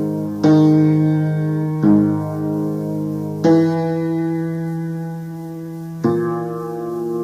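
Ambient black metal keyboard music: slow sustained keyboard chords, a new chord struck four times, each ringing on and slowly fading before the next.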